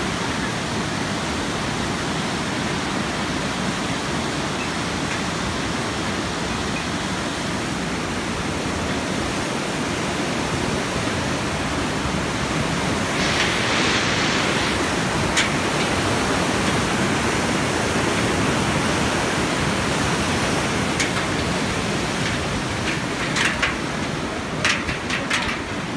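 A river in flood, its muddy water rushing steadily in a loud, even noise. A few sharp knocks come near the end.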